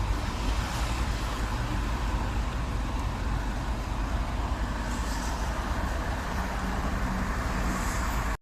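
A vehicle engine running steadily, an even low rumble with a constant wash of noise over it and no distinct events.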